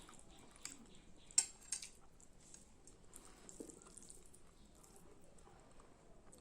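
Close-up eating sounds: soft, wet chewing and mouth clicks, with two sharper clicks about a second and a half in.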